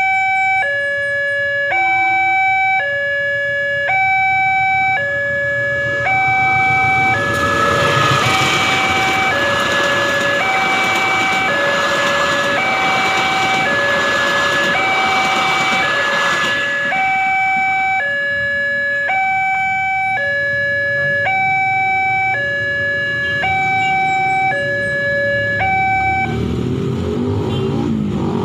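Railway level-crossing warning signal sounding continuously, an electronic two-tone alternating between a lower and a higher note about every three-quarters of a second. A passenger train rumbles past over it from about 7 to 17 seconds in. Road-vehicle engines rise near the end as traffic moves off across the crossing.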